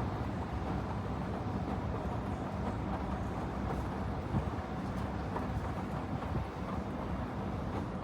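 Panasonic XQG32-A312D compact washing machine running: a steady low hum with an even noisy wash over it.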